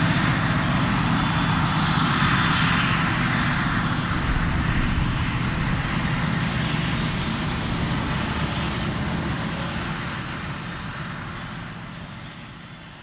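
Claas Jaguar 940 forage harvester chopping maize, with the tractor and silage trailer running alongside: a steady drone of engines and chopper with a broad hiss of crop flow, fading away over the last few seconds.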